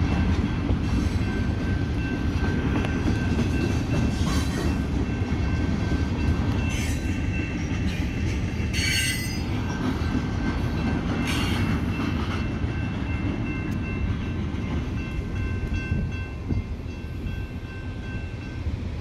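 BNSF freight train of lumber-loaded flatcars rolling past at a grade crossing: a steady rumble of wheels on rail, with brief high wheel squeals every few seconds. The rumble eases slightly as the last cars pass near the end.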